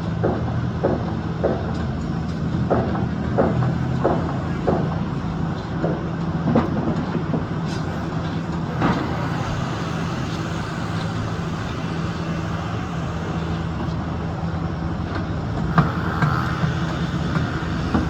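Construction machinery running with a steady diesel drone, and a run of short knocks or clanks about twice a second for the first few seconds, with a few more scattered later.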